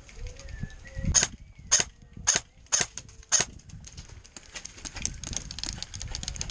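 Airsoft gun firing five sharp single shots about half a second apart, followed by many fainter clicks of further shots.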